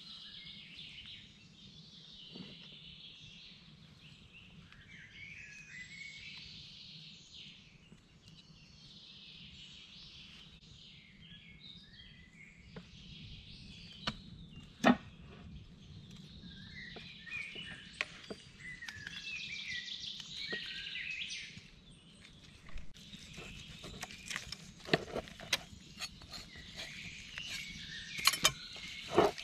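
Woodland birds singing and chirping. There is a sharp knock about halfway through, and near the end a run of clicks and knocks from a knife working on a wooden board.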